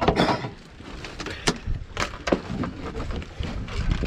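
Irregular sharp knocks and thumps on a small fishing boat, about half a dozen, over a low steady rumble of wind and water.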